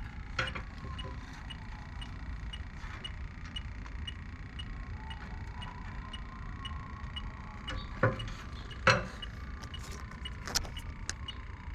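Electronic refrigerant leak detector ticking at an even, slow rate of about two high beeps a second while it searches for a leak around the heat pump's coil and fittings. A few sharp knocks from handling come near the end, over a low rumble.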